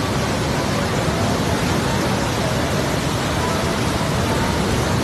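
Parvati River in flash flood, a torrent of muddy water surging past: a steady, loud rush of water with no breaks.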